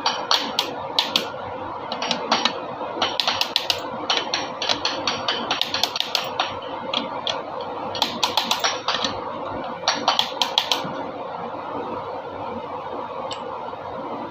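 Hand tools working on engine parts: sharp metallic clicks and clinks in irregular clusters, some in quick runs, stopping near the end, over a steady background hum.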